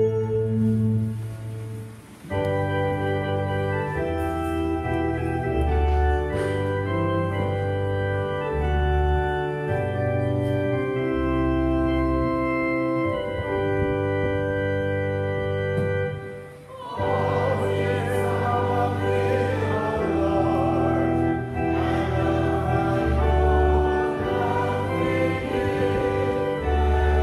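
Organ playing a hymn in slow, held chords over a bass line, pausing briefly about two seconds in and again about sixteen seconds in. After the second pause, voices sing along with it.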